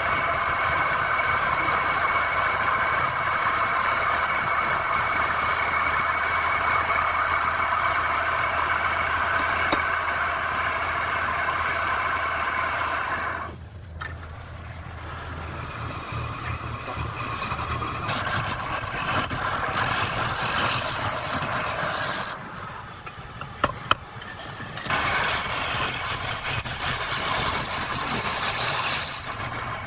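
Wood lathe running with a steady motor hum. A turning tool cuts the spinning wood in spells, giving a hissing, scraping noise. The sound drops briefly about halfway through and again around two-thirds through, with a couple of sharp clicks in the second lull.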